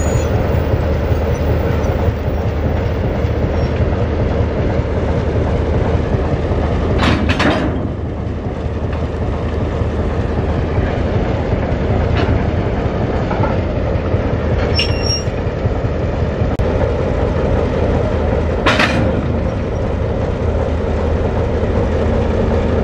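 Baldwin S12 diesel switcher locomotive idling with a steady low rumble, with a few brief sharp metallic sounds around the coupler, one of them ringing briefly.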